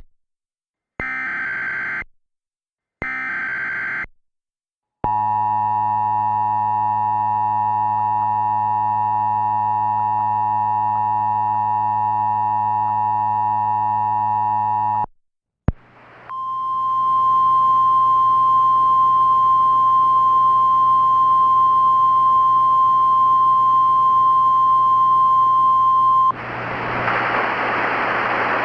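Simulated Emergency Alert System tones: the last of the SAME header's screechy digital data bursts, each about a second long, then a buzzy ten-second attention tone. After a click, a steady single high tone plays over a hiss for about ten seconds, then gives way to radio static near the end.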